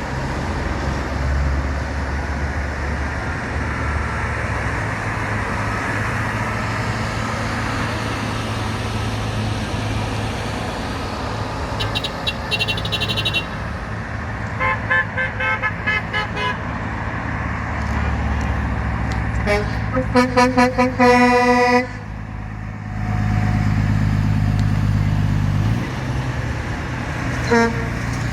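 Passing trucks with a steady engine and road hum, sounding their horns. The toots start about twelve seconds in, come in short bursts and a few longer blasts, and are loudest around twenty seconds in. After that a louder low engine drone follows as a truck goes by.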